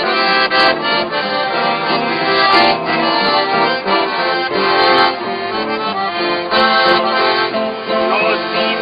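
Accordion music: a tune played over steadily held chords.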